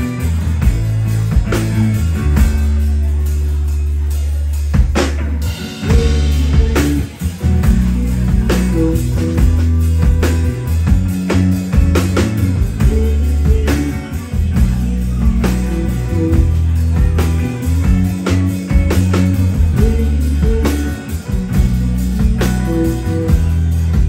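Live rock trio playing: drum kit, electric bass and electric guitar, with some singing. A heavy low bass note holds through the first few seconds, then about five seconds in the drums come back in with a steady beat.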